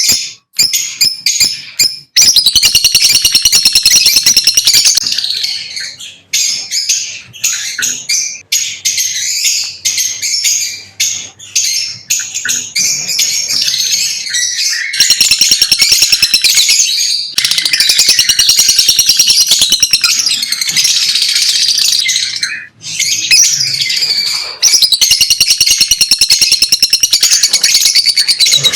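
Lovebirds chattering and chirping: shrill, rapid chatter in long loud runs broken by short pauses.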